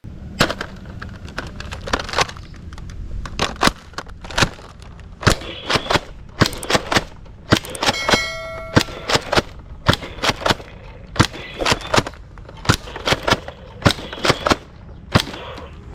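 A toy gun being fired again and again: a long run of sharp gunshot-like cracks at uneven spacing over a steady low hum, with a brief ringing tone about eight seconds in.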